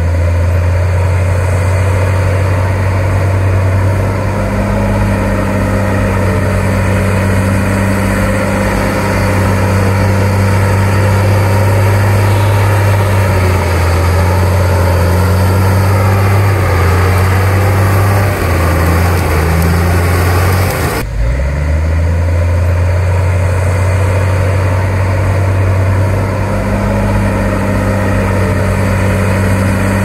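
Komatsu D53P bulldozer's diesel engine running steadily with a low, loud drone. About two-thirds of the way in, the pitch wavers briefly and then the sound changes abruptly.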